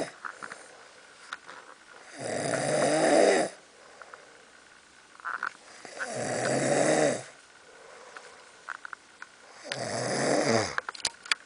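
A sleeper snoring: three loud, throaty snores about four seconds apart, each lasting a second or so, with quiet breathing and a few faint clicks in between.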